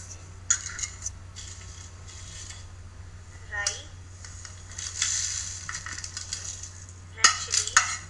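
Metal spoon scraping and tapping on a ceramic plate as mustard seeds are pushed off it into a plastic bowl, ending in a quick run of sharp clicks about seven seconds in. A low steady hum lies underneath.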